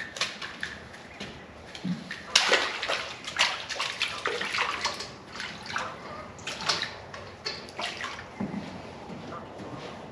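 A hooked crappie splashing at the water's surface beside the dock as it is brought up, in irregular bursts, loudest about two and a half seconds in.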